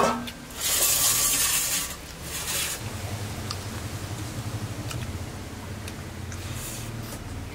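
Eating by hand from a steel plate: soft scrapes and squishes of fingers working rice, with a loud rustle about a second in and a shorter one just after, then a low rumble.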